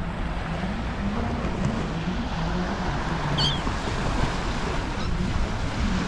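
Sea surf washing on a sandy beach, a steady rushing noise with some wind. A brief high chirp comes about three and a half seconds in.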